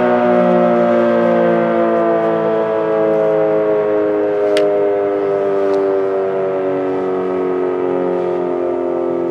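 Sentry 40V2T dual-tone rotating outdoor warning siren winding down from its steady full-alert tone, both tones sliding slowly lower in pitch. Two short clicks sound about halfway through.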